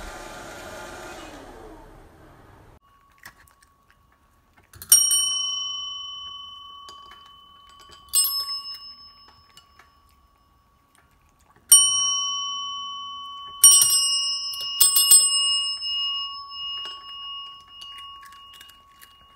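Chrome desk call bells (service bells) dinged about six times, some strikes close together. Each ding rings on and fades slowly.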